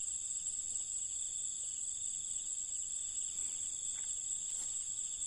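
Chorus of crickets and other night insects trilling steadily, a continuous high-pitched sound at a few different pitches.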